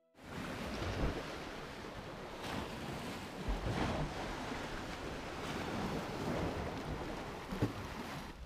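Wind buffeting an action camera's microphone, a gusting low rumble, over the steady wash of sea waves against rocks, with a few faint knocks.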